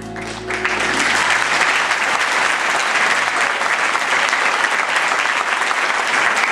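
Audience applauding steadily, breaking out about half a second in as the last held notes of the music die away.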